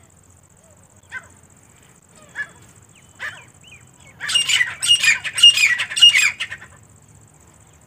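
Grey francolin (teetar) calling: three short single notes about a second apart, then a loud run of four quickly repeated phrases in the second half.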